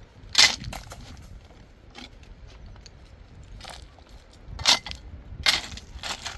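Stones knocking against each other as they are handled for building: about five sharp clacks at uneven intervals, the loudest about half a second in and two more close together near the end.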